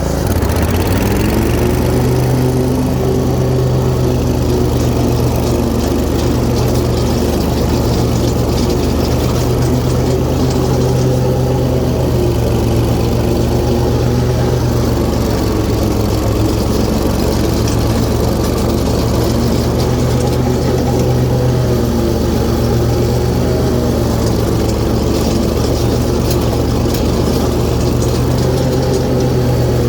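John Deere Z410A zero-turn mower's 23 hp Kawasaki FX engine running steadily with the cutting blades engaged, mowing grass. Right at the start the engine note dips and recovers as the blades take up the load.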